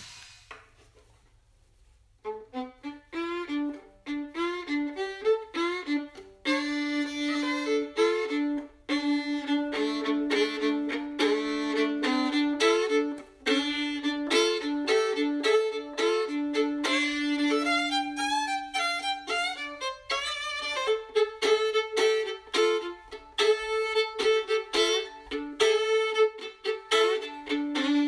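Background music: a lively violin tune with quick, clearly separated notes, starting about two seconds in after a brief near-quiet.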